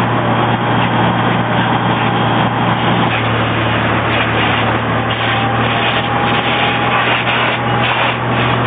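A fire engine's motor running steadily under a constant loud hiss.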